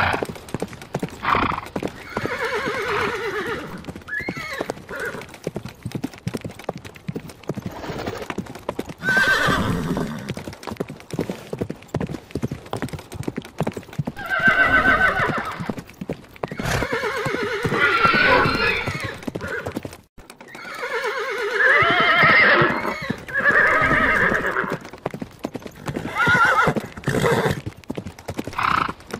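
Horses neighing, several long whinnies that waver and fall in pitch, over a running clatter of hooves.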